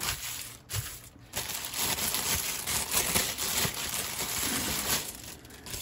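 Clear plastic bag crinkling and rustling as hands unwrap a figure from it, loudest through the middle and fading near the end.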